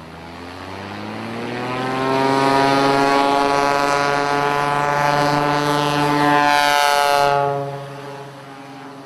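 Light single-engine propeller plane's piston engine and propeller at full power for a short takeoff run. The pitch climbs over the first two seconds as the power comes up, then holds loud and steady. The sound drops away suddenly about seven and a half seconds in.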